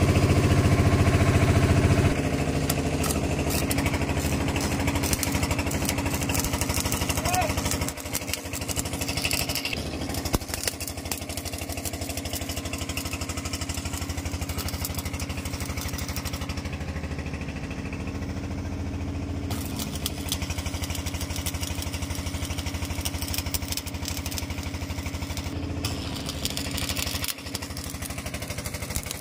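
An engine running steadily. It drops to a lower, even run about two seconds in, with a faint scattered crackle over it for most of the time.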